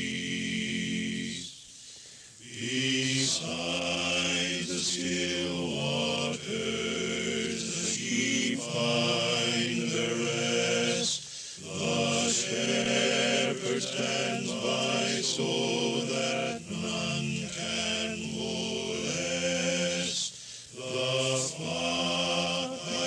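Several overdubbed vocal parts, all sung by one man, blending in harmony as a multi-part choir of a single voice, with short breaks between phrases.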